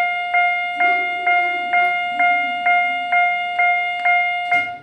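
Japanese railway level-crossing warning bell on a museum crossing model, ringing its steady clang at about two strikes a second. It stops abruptly near the end.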